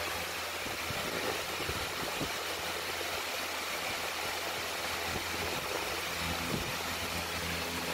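Steady low hum with a hiss of background noise, even throughout, with no distinct events.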